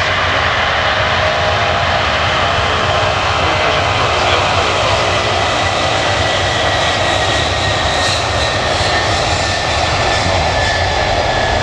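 Antonov An-225's six turbofan engines running at takeoff thrust during the takeoff roll, loud and steady, with a high whine that slowly falls in pitch as the aircraft moves off down the runway.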